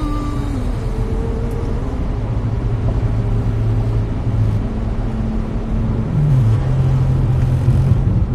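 Car engine and road rumble heard from inside the cabin while driving, a steady low drone whose pitch shifts about six seconds in.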